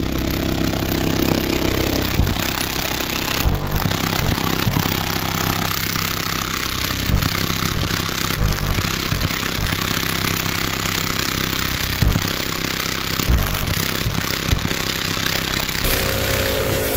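A wall of four Genius Audio G9 subwoofers playing a bass-heavy track at very high volume. The bass overloads the microphone, so it comes through as a steady distorted buzz with low pitched tones under it.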